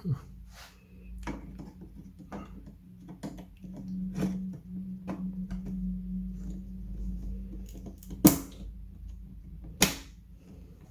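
Small clicks and taps of hands handling plastic computer parts, with two sharp plastic clicks about eight and ten seconds in. A low steady hum runs underneath.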